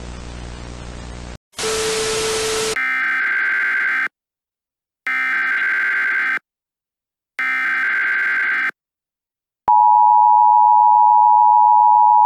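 Static hiss that cuts off about a second in, then a short harsher burst of noise with a low steady tone. Next come three Emergency Alert System SAME header data bursts, buzzing digital tones each about a second and a half long with roughly a second of silence between. Near the end the loud, steady two-tone EAS attention signal begins.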